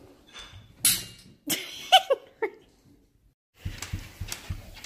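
A pet's short, sharp cries: two harsh noisy bursts, then a few quick yelps that fall in pitch. Several dull knocks follow near the end.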